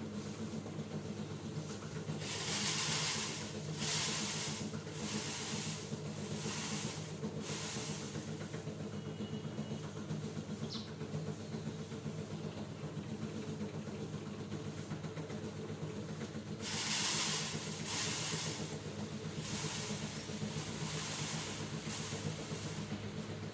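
Rhythmic swishing strokes of rice straw being handled, about one a second in two runs, over a steady low hum.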